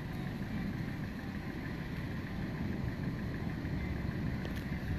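Steady low rumbling of wind buffeting a phone's microphone, with no distinct events.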